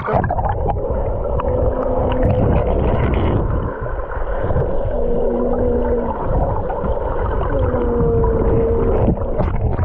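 Muffled churning of hot-spring pool water close on the microphone, with a few faint, muffled voice-like tones held briefly three times.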